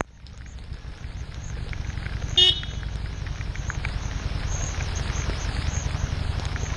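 Harley-Davidson Street 750 V-twin engine running at low speed. Its sound dips suddenly at the very start and builds back over the first second or two. A single short horn toot sounds about two and a half seconds in and is the loudest moment.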